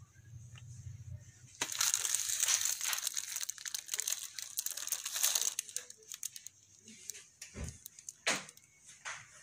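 Plastic wrapping crinkling and rustling as it is handled: a dense run of crackling from about a second and a half in that lasts about four seconds, then scattered single crackles.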